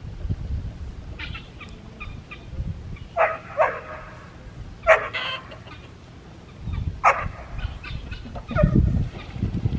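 Chickens clucking over feed, with a few separate loud calls over a low rumble that swells near the end.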